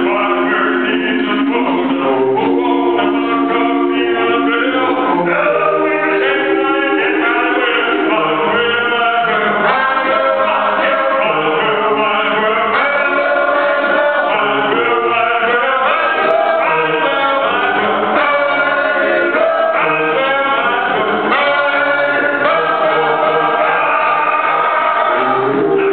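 Four-man a cappella group singing live through a PA, several male voices in harmony with no instruments.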